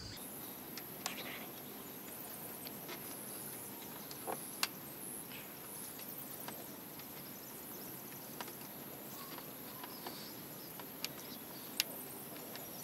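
Faint, steady high-pitched insect trill, with scattered small clicks and taps from fingers working a cable under a car's plastic door-jamb trim.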